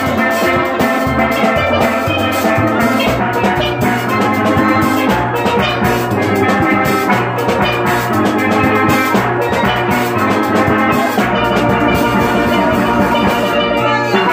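A steel band playing: several steel pans struck in many quick ringing notes, backed by drums and cymbals.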